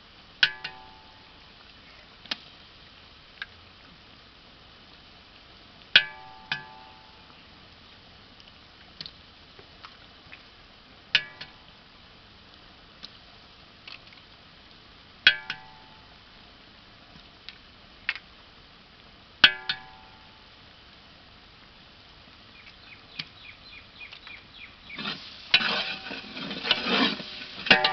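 Eggs being cracked one at a time against the rim of a large aluminium cooking pot: a sharp tap every few seconds, each with a brief metallic ring. Near the end a ladle starts stirring and scraping through the thick masala in the pot.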